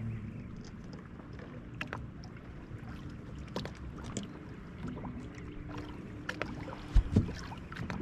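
Handling noise on a fishing boat: a low steady hum with scattered small clicks, and two sharp knocks close together about seven seconds in.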